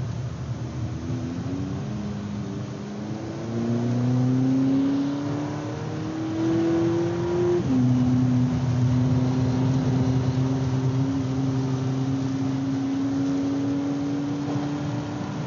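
Volkswagen Polo GTI (AW) 2.0 TSI turbo four-cylinder heard from inside the cabin, pulling hard with revs climbing. An upshift about seven and a half seconds in drops the revs, then they rise slowly again. Steady tyre and road noise from the wet track underneath.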